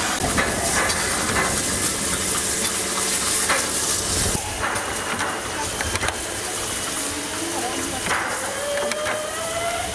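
Steady steam hiss from a standing narrow-gauge steam locomotive, 99 7235-7, with a few short knocks. The hiss eases a little about four seconds in.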